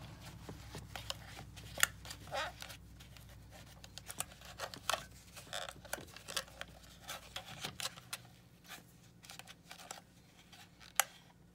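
Irregular clicks, taps and short scrapes of tools working in a plastic toy remote's battery compartment while corrosion is cleaned out, with a few sharper clicks standing out.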